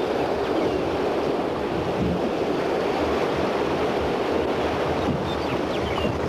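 Whitewater of a river rapid rushing steadily around a drift boat.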